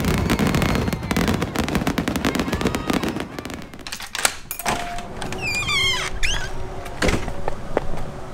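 Fireworks crackling and popping densely for about four seconds. Then a few sharp clicks of a door lock and knob being worked.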